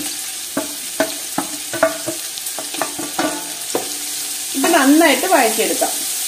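Chopped onions sizzling in hot sunflower oil in a large aluminium pot. A wooden spatula scrapes them off a steel plate and stirs them, making many short ringing knocks. About 4.5 seconds in comes a louder wavering squeak, lasting about a second and a half.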